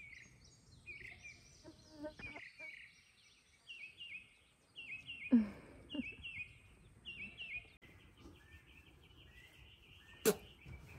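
A bird singing outdoors, repeating short chirping phrases over and over. A louder short falling call cuts in about five seconds in, and a sharp click comes near the end.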